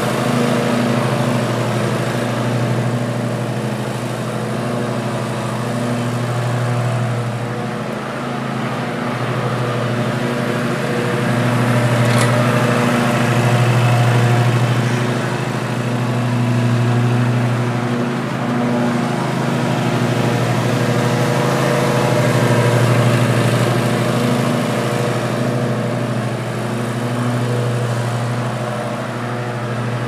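Zero-turn riding mower running steadily as it cuts grass, its engine hum and blade noise growing louder and softer every few seconds as it moves back and forth across the lawn.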